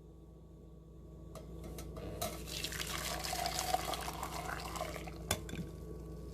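Hot milk tea being poured from a pan into a cup for about three seconds, with a few light clinks before it and a sharp knock at the end. A steady low hum runs underneath.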